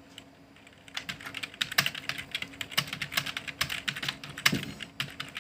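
Computer keyboard being typed on at a medium, steady pace: a quick, irregular stream of key clicks that starts about a second in.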